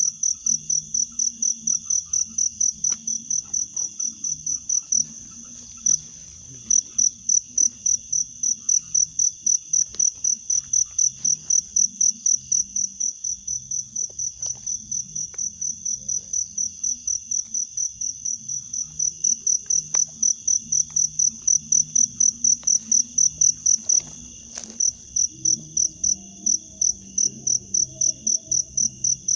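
Insect chirping in a fast, even rhythm of about three high-pitched pulses a second, pausing briefly twice.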